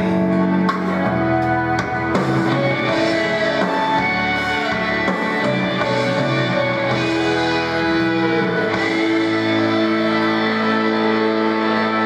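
Instrumental music with sustained held chords and occasional plucked notes, played back as a backing track with no one singing over it.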